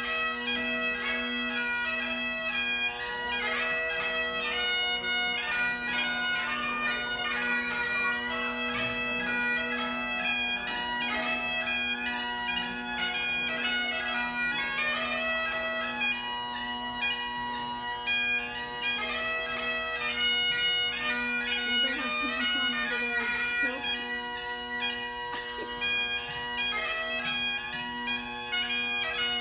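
Great Highland bagpipes playing a fast tune over steady, unbroken drones.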